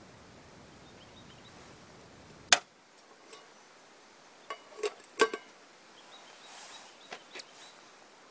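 Lid of a titanium cook pot clinking against the pot. One sharp click comes about two and a half seconds in, then a cluster of lighter metallic clinks with brief ringing around the middle as the lid is lifted off and set back on, and a couple of faint clicks near the end.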